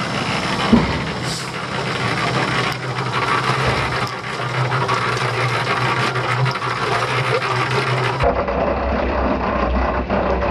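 Cement mixer running, its drum churning a wet cement mix with a steady gritty scraping over a motor hum. About eight seconds in the sound cuts abruptly to a lower engine hum.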